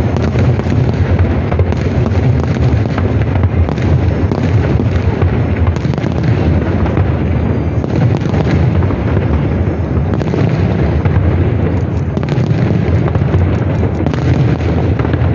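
Fireworks barrage: aerial shells bursting in quick succession, heard as a continuous low rumble with crackling over it.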